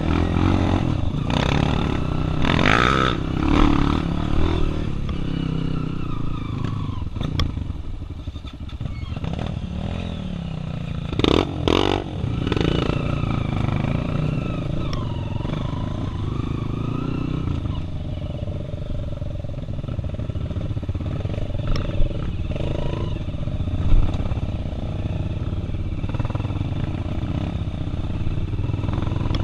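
Single-cylinder four-stroke trail motorcycle engine running, its revs rising and falling, with a few short knocks or clatters along the way.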